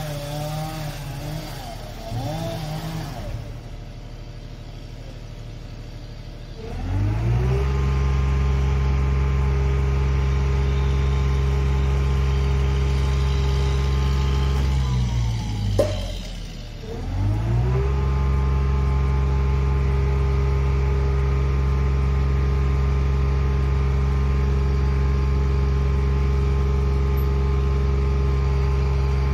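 Engine of a truck-mounted boom lift revving up and holding a steady raised speed to drive the boom's hydraulics. It drops off once with a click about halfway through, then revs back up to the same steady note.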